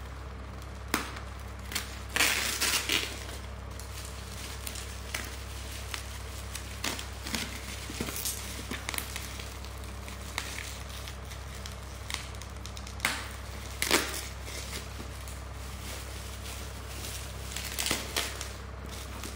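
Bubble wrap and plastic packaging crinkling and crackling in irregular bursts as it is cut and pulled off a cardboard box. The loudest bursts come about two to three seconds in and around fourteen seconds, over a steady low hum.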